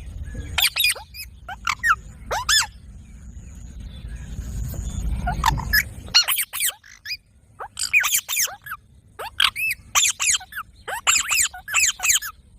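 A parrot calling: short, high, sharp squawks, some single and some in quick runs of two to four, coming thicker in the second half. A low rumble lies underneath for the first half and stops suddenly about halfway through.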